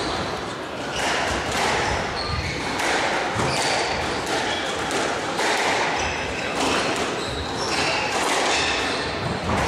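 Squash rally: the ball is struck by the rackets and smacks off the walls in a quick run of hits, with shoes squeaking on the court floor.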